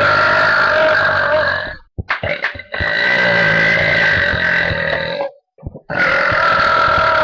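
Girls burping loudly: three long, drawn-out burps of about two and a half seconds each, one after another, with short breaks between them.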